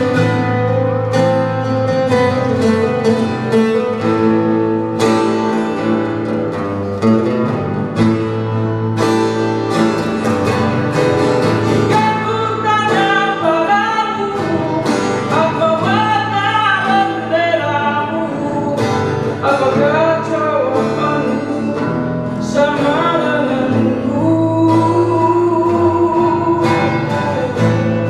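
Acoustic guitars playing a Malay folk song, with a voice singing over them through the middle part.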